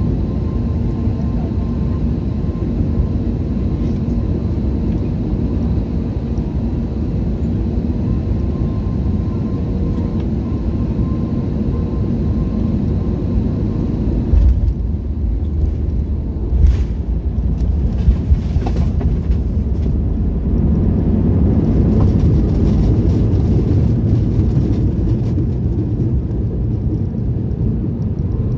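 Cabin noise of an Airbus A320 landing: a steady rush of air and engine hum on final approach. About fourteen seconds in, the wheels touch down with a thump, followed by a few knocks and rattles. The noise then swells into a louder rumble as the aircraft slows on the runway with its ground spoilers raised.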